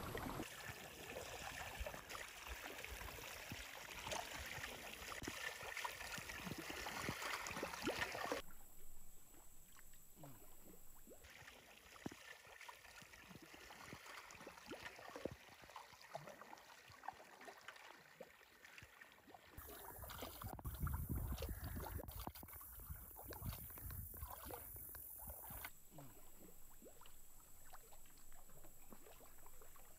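Sea kayak paddling on calm water: paddle blades dipping and dripping, water slipping along the hull. The sound is faint and changes abruptly several times, with a stretch of low rumble past the middle.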